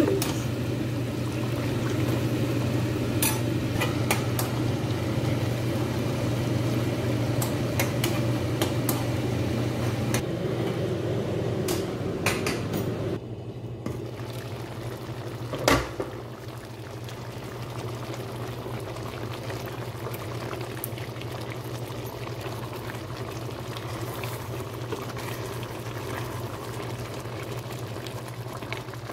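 Pot of chicken stew in tomato sauce simmering and bubbling, over a steady low hum. A single sharp knock about halfway through as the glass pot lid is handled.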